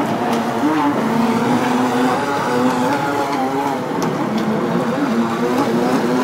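Twin electric motors of an RC boat running on the water, a steady motor whine that wavers up and down in pitch as the throttle changes.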